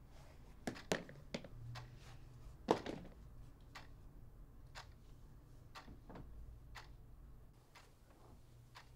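A few quiet knocks and thuds in a small room, the loudest just under three seconds in, then a clock ticking faintly about once a second.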